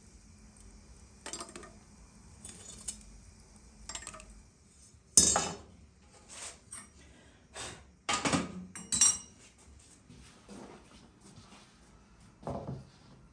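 Metal clinks and clanks of a samovar's firebox and its metal chimney pipe being handled and fitted together, with one loud clang about five seconds in and a quick run of clanks a few seconds later. A duller knock comes near the end.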